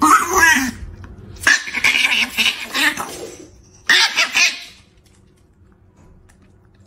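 Chihuahua vocalizing at a cat in three short outbursts over the first four and a half seconds, then falling quiet.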